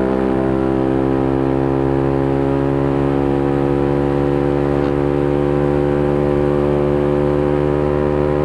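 KTM Duke 125's single-cylinder four-stroke engine, fitted with a full Scorpion exhaust system, running hard at steady revs as the bike rides along, its note holding an even pitch.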